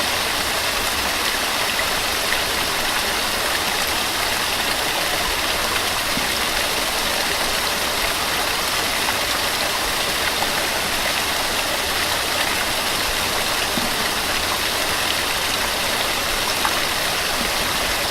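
Small waterfall splashing and rushing: a steady, even wash of falling water that does not change.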